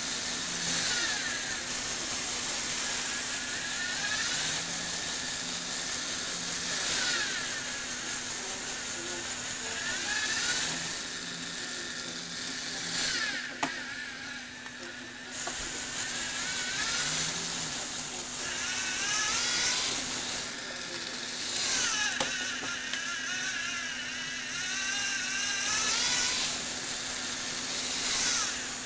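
Small Lego Technic electric motor whining through plastic gears as it drives a scissor lift, running in spells of a few seconds, with a quieter pause and a sharp click about halfway through.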